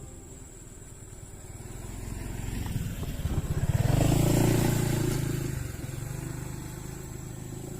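A motor vehicle engine passing by, growing louder to a peak about four seconds in, then fading away.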